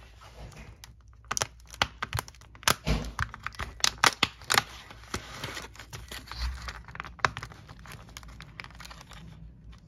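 Cardboard door of an advent calendar being torn open with the fingers: a run of sharp clicks, tears and crinkles, densest a few seconds in and thinning out after about seven seconds.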